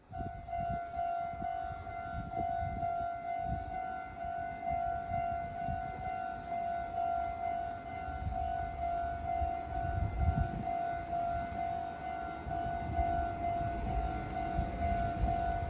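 Japanese railway level-crossing alarm ringing: a bell tone repeating quickly and evenly, the warning that a train is coming. A low, uneven rumble runs underneath.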